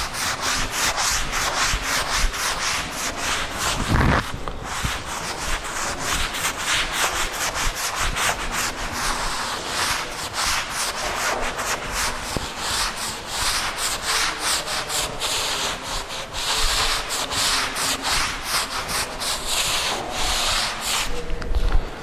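Chalk being wiped off a blackboard with a duster: rapid back-and-forth rubbing strokes, with a single thump about four seconds in.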